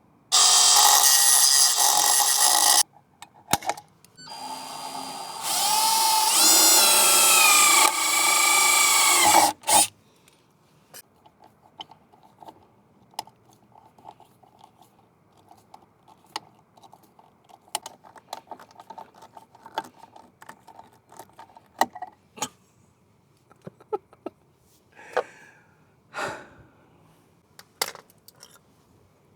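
Power drill running in two loud bursts, the second with its whine sliding up and down as the speed changes, used on the camera mount's screws. Afterwards, small clicks and knocks of handling hardware.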